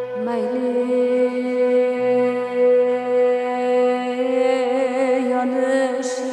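Uzbek song: a female singer holds long notes over string accompaniment, her voice wavering in vibrato about four seconds in.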